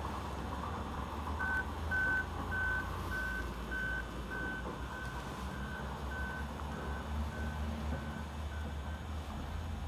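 Vehicle backup alarm beeping about twice a second, starting about a second and a half in and growing fainter, over a steady low rumble.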